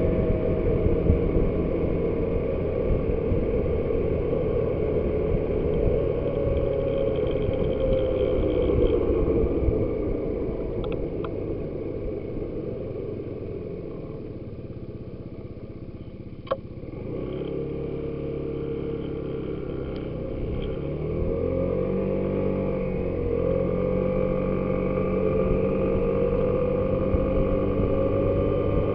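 Suzuki Burgman motor scooter riding at road speed, its engine under heavy wind noise on the camera microphone. About halfway it slows and goes quieter, a single sharp click sounds, then the engine pulls away again with rising pitch.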